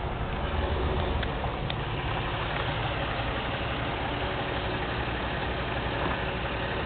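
Kenworth truck's diesel engine idling with a steady low rumble.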